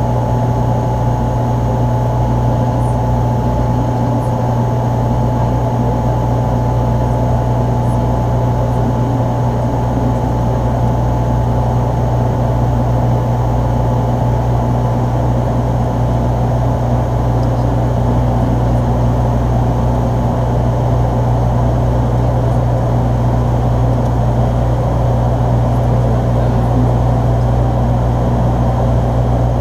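De Havilland Canada Dash 8-314's twin Pratt & Whitney Canada PW123 turboprops and four-bladed propellers droning steadily in flight, heard inside the aircraft: a strong low hum under an even hiss.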